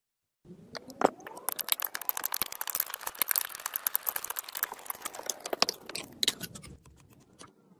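Palette knife pressing and smearing thick, sticky paint, giving a dense wet crackling of many small clicks that thins out near the end.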